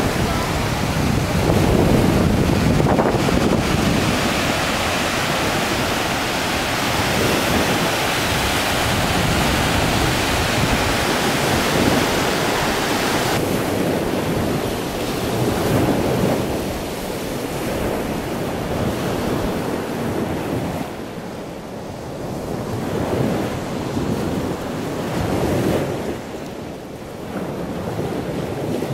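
Big storm surf breaking and washing up a sandy beach: a continuous rush of surf that swells and eases with each set of waves, with wind buffeting the microphone.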